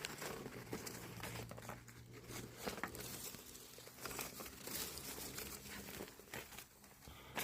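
Joss paper (silver paper offerings) crinkling and rustling faintly as it is handled for burning, with scattered small crackles.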